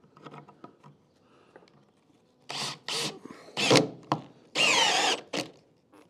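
Cordless drill working into a ceiling rafter in several short bursts, starting about two and a half seconds in. The longest and loudest burst comes in the later part, its motor pitch rising and falling.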